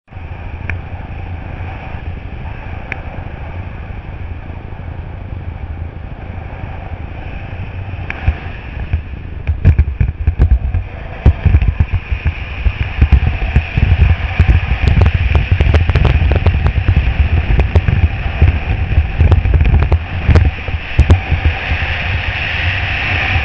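Wind rushing over the microphone of a paraglider pilot's camera: a steady rumble and hiss that turns louder and gusty about ten seconds in, as the glider spins in a SAT and the airspeed rises.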